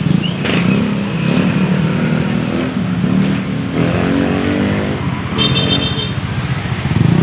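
Busy street traffic: motorcycle and car engines running as they pass close by, one engine revving up about four seconds in. A brief high, buzzing beep sounds a little after five seconds.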